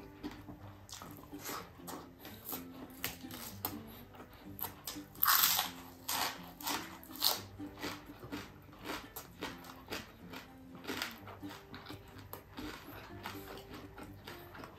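Close-miked chewing and crunching as crispy fried galunggong fish and rice are eaten by hand: many short crackly bites, loudest about five seconds in.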